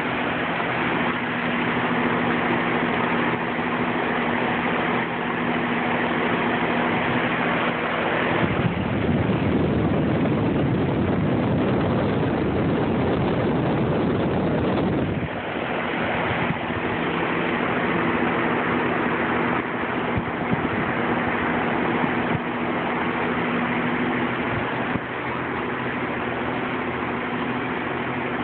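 Outdoor air-conditioner condenser running on its fan motor alone, with the compressor not running because it is broken: a steady hum with a rush of moving air. From about 8 seconds in until about 15 seconds in, the fan's airflow blows straight across the microphone, and a louder even rush covers the hum.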